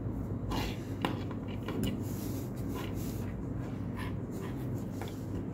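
Fabric hair bows rustling and rubbing as they are handled and shuffled in the hands, with a few soft taps scattered through, over a low steady hum.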